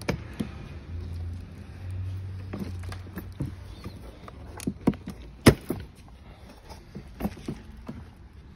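Hard plastic body and metal steering parts of a kids' ride-on quad bike knocking and clicking as they are handled during assembly: a scattering of sharp, separate knocks, the loudest about five and a half seconds in.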